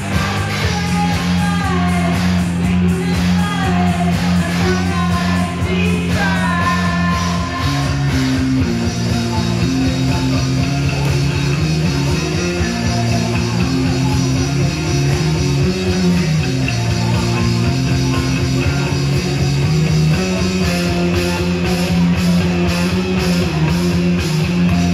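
Rock band playing live: a heavy electric bass line over drums and keyboard. A woman's voice sings over the first several seconds, then the instruments carry on.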